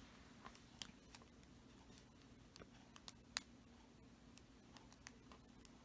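Near silence with faint, scattered little clicks and ticks of fingers handling small rubber loom bands, stretching them over the fingers. The loudest click comes a little over three seconds in.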